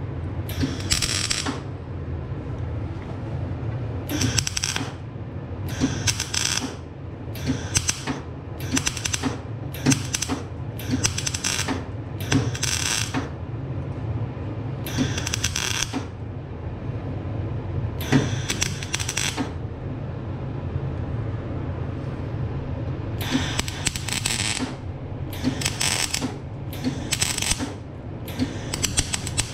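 MIG welding arc crackling in about fourteen short bursts of half a second to a second each, stitch-welding a steel exhaust pipe, over a steady low hum.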